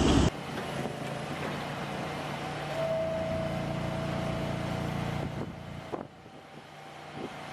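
An engine running steadily with a low hum, and a higher held tone for a couple of seconds in the middle; the sound drops off about six seconds in.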